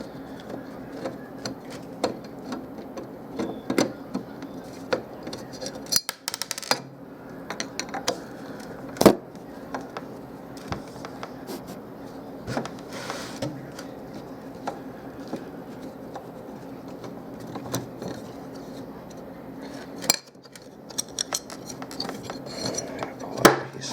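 Metal clinking, clicking and rattling as the sheet-metal casing and screws of a car stereo are handled and taken apart. Scattered sharp knocks, the loudest about nine seconds in, over a steady low hum.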